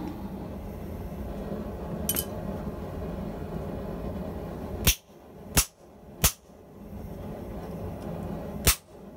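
Hammer blows on a serrated steel rack die, driving it down onto a red-hot length of pipe to press a zigzag pattern into it. Three sharp metallic strikes come about two-thirds of a second apart just past halfway, and a fourth comes near the end. A steady low hum runs under the first half.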